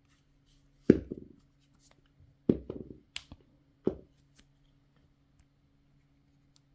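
Handling noise: four sharp knocks and clicks spread over a few seconds, over a faint steady low hum.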